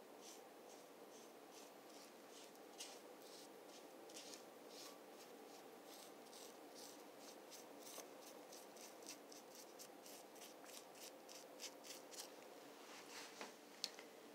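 Faint, quick scratchy strokes of a paintbrush working white paint onto a pedestal, over a low room hum.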